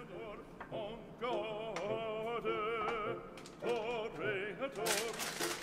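Opera singing with a wavering vibrato, from an old, thin-sounding recording. A rustle of handling comes in near the end.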